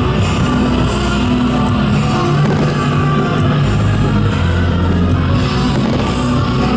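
Loud rock-style show music with guitar, playing steadily throughout.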